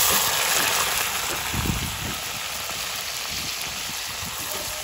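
Sliced red onions dropped into hot oil and sizzling: a sudden loud burst of sizzle as they hit, then a steady hiss that eases a little after a couple of seconds.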